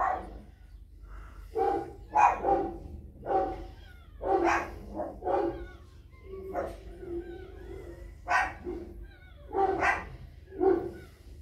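A dog barking repeatedly in short barks, about one a second, with faint high whines between the barks in the middle.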